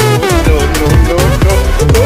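Loud dance music with a steady beat and a lead melody that slides up and down in pitch.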